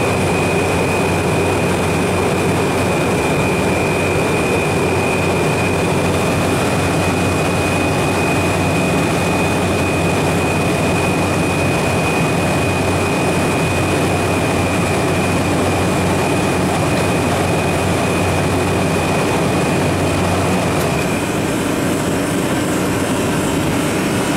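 Refrigeration condensing unit running: the Copeland compressor and condenser fan give a loud, steady hum and rush of air, with a thin steady high whine over it. Near the end the whine stops and the hum eases.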